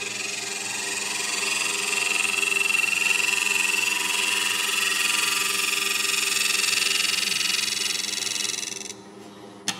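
Turning tool making a back cut into spinning cedar of Lebanon on a wood lathe: a steady hiss of cutting over the lathe's motor hum. The cut stops abruptly near the end, followed by a single sharp click.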